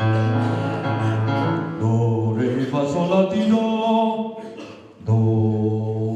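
Unaccompanied voices singing a slow tonic solfa exercise in long held notes, the pitch stepping up in the middle and coming back down to the low note after a short break about five seconds in.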